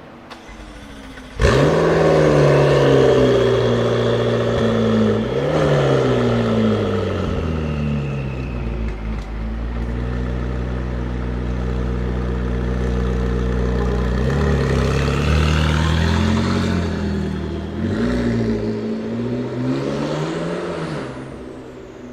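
Supercar engine revving: it comes in suddenly about a second and a half in with a rev, blips again around five seconds, idles steadily through the middle, then revs up several more times before dropping away near the end.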